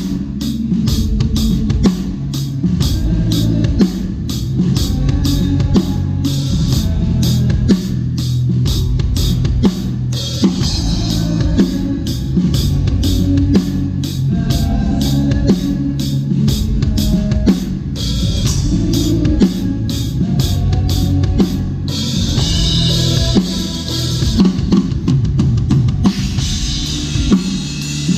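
Drum kit playing a steady rock beat on kick, snare and cymbals, with sustained cymbal crashes in the last third.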